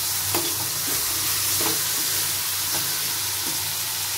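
Raw banana pieces and onions sizzling in oil in a metal pot, a steady hiss, while a steel spoon stirs them and scrapes against the pot about once a second.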